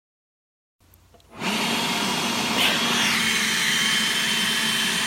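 Hoover ONEPWR cordless blower starting up about a second in, then running steadily: a rush of air with a high motor whine.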